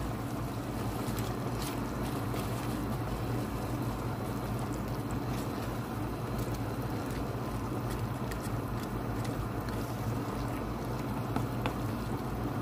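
Steady low hum and hiss from a pot of minced-meat sauce cooking on the stove, with a few faint scrapes of a wooden spoon stirring it.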